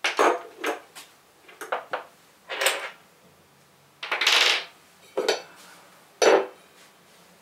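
Metal and plastic telescope mount parts clinking and knocking as they are handled and set down on a hard floor: a string of separate short clatters, with a longer rustling scrape about four seconds in.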